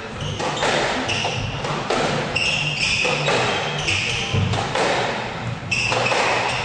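Squash rally: the ball cracks off rackets and the court walls again and again, ringing in the hall, with short high squeaks of shoes on the wooden court floor between hits.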